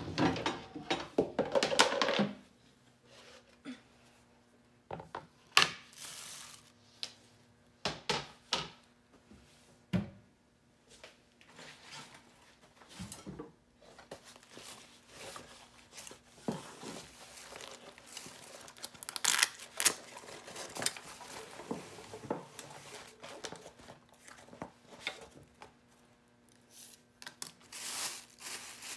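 Plastic grocery bag crinkling and rustling, broken by scattered sharp knocks and clatter as a plastic cutting board and a knife are set down on a tiled countertop.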